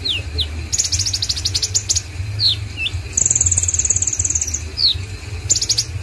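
Caged male black sunbird singing. Quick high rattling trills, short falling chirps and, in the middle, a longer high buzzy trill.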